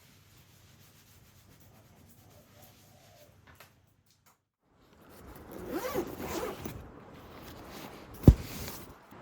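Faint background for the first four seconds or so, then, after a brief dropout, a rasping, rubbing handling sound with short sweeps. A single sharp click comes near the end and is the loudest sound.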